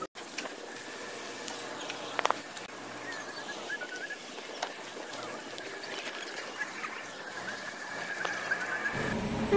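Outdoor ambience with small birds chirping in short, repeated high notes. Two sharp taps sound close together about two seconds in.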